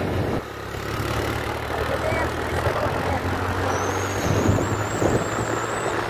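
Motorcycle engine running steadily while riding, with wind rushing over the microphone.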